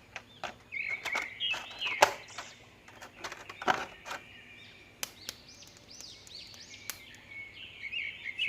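Small birds chirping in the background, with scattered sharp clicks and light knocks, the loudest about two seconds in and again near the middle.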